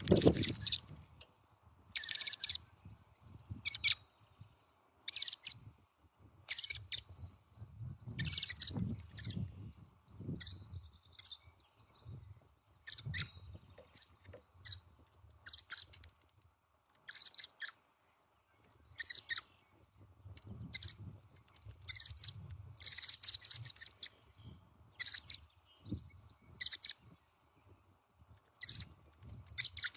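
Small birds giving short, high call notes, repeated about once every second or so, with low rumbling and soft thumps underneath at times.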